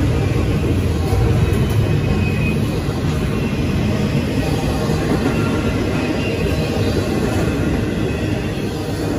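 Double-stack container freight train rolling past: a steady rumble of steel wheels on rail and swaying well cars, easing off slightly toward the end as the tail of the train nears.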